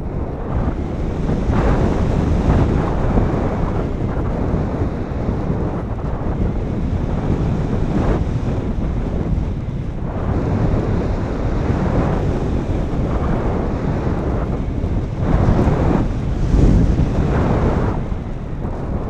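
Wind rushing over the microphone of a GoPro carried on a Sky Eye RC plane in flight: a steady low buffeting rush that swells louder in surges, most strongly near the end.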